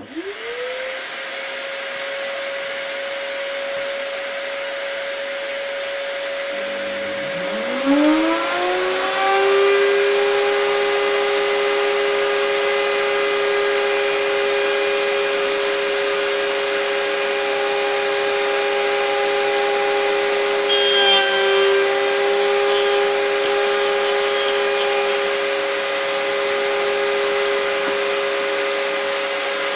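A shop vacuum motor starts with a rising whine and runs steadily; about seven seconds in a router on a homemade router table spins up with a second rising whine, and the two run together. Around twenty seconds in the router's pitch dips briefly under load with a short rasping noise, as it cuts into wood.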